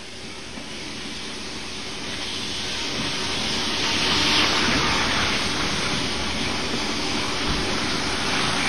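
Model train running along the track, its motor and wheels making a steady rattling hum that grows louder over the first four seconds, then holds steady.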